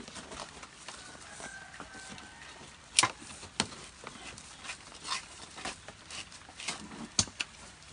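Scraping and prying of hand tools working dried coconut meat (copra) out of smoked coconut shell halves, with scattered sharp clacks of tool on shell, the loudest about three seconds in, just after, and near the end.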